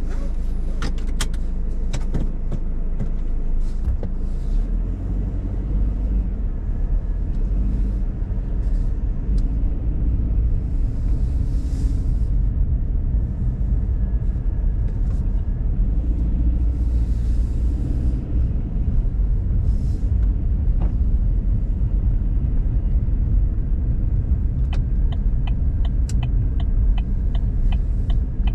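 Car cabin noise while driving slowly: a steady low engine and road rumble. Near the end a regular ticking, about twice a second, from the turn signal.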